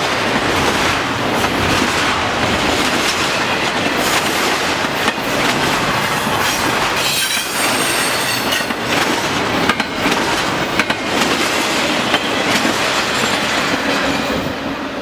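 Intermodal freight cars rolling past on the main line: steady rumble and clatter of steel wheels over the rails, with a little wheel squeal. It starts to fade near the end as the tail of the train goes by.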